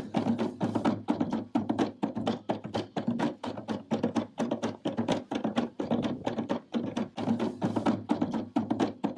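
Fast percussion music: a steady, driving rhythm of sharp drum strikes, several a second.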